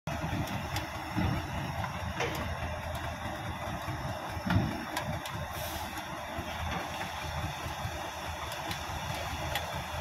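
Caterpillar D6D bulldozer's diesel engine running steadily in wet clay, with a dump truck working close by, scattered metallic clicks and two heavier thumps, about a second in and about four and a half seconds in.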